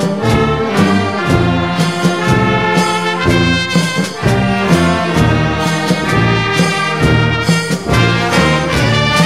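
Brass music, trumpets and trombones playing a tune over a steady beat.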